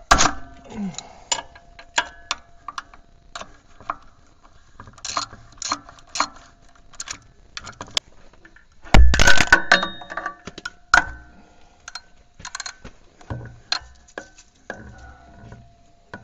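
Metal hand tools and parts clinking and knocking during repair work: a run of sharp clicks, some with a short metallic ring, with a louder clatter about nine seconds in.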